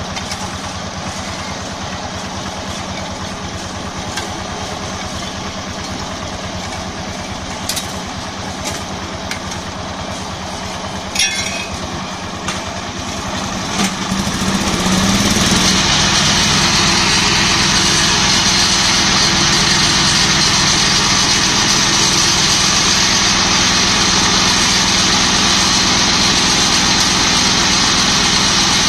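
Small single-cylinder diesel engine on a mobile egg-laying brick machine, running steadily with a few sharp metal clanks. About halfway it goes much louder and harsher as the engine takes up speed and drives the machine's mould vibrator, and it holds there steadily to the end.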